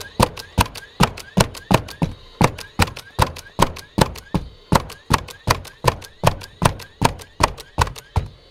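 DeWalt DCN45RND 20V cordless coil nailer shooting nails in bump mode, trigger held: a steady run of sharp shots about two and a half a second, with a short rising whir between shots.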